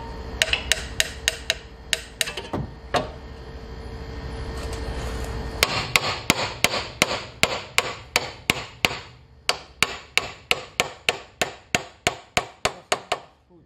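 Steel ball-peen hammer tapping metal at the lower control arm's bushing mount, working the arm into line with its bolt holes. A quick run of taps, a pause of a couple of seconds under a steady hum, then a long even run of about three taps a second, briefly interrupted near the middle.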